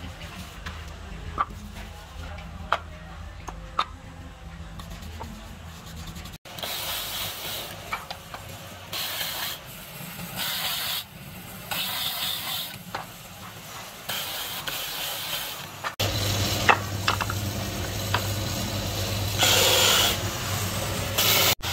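Wood pressed against a motor-driven sanding disc in repeated strokes, a loud abrasive hiss that starts and stops about every second over the steady hum of the motor. In the first few seconds, before the sanding, only a faint hum and a few light taps.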